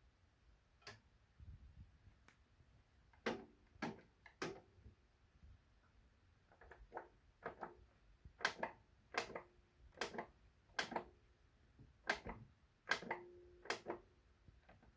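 Front-panel push-buttons of a Kenwood KA-990V stereo integrated amplifier being pressed one after another, giving a series of sharp mechanical clicks, many in quick pairs, most of them in the second half.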